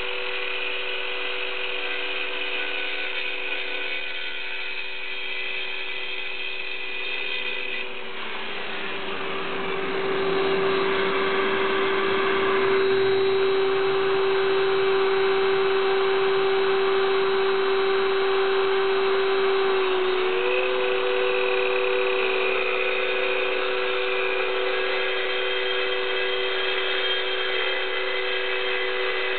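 Circular saw running with a diamond masonry blade scoring concrete: a steady motor whine. About eight seconds in its pitch sags a little and the sound grows louder and grittier as the blade grinds into the concrete, then the pitch climbs back about twenty seconds in.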